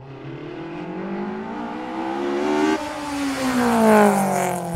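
Car engine accelerating hard, its pitch climbing and then dropping sharply on an upshift about three seconds in. It then pulls again and passes by, loudest near four seconds, with the pitch falling as it goes.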